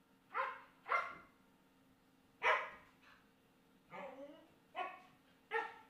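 A medium-sized dog barking: six short barks at uneven spacing, the fourth, about four seconds in, longer and lower than the others.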